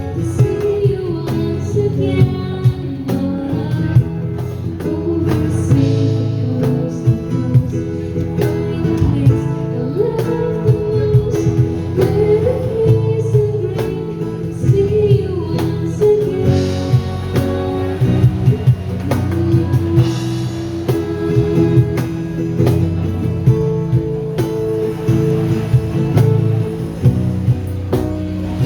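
Live band playing a song: sung vocal melody over guitar, with drums keeping a steady beat.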